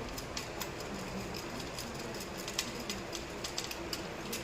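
Steady background noise with light clicks and taps scattered irregularly throughout.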